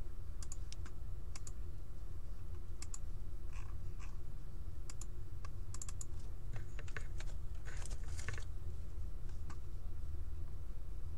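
Light clicks and taps coming in irregular clusters, thickest in the second half, over a steady low hum.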